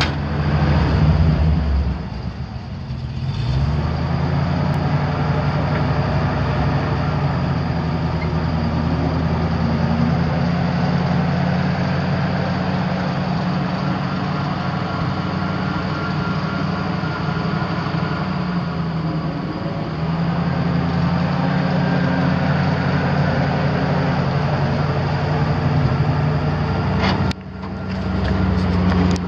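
Eight-cylinder gas engine of a 1973 Dodge 600 grain truck running steadily, its pitch rising briefly a few seconds in and shifting again about two-thirds through, with a short sudden drop in level near the end.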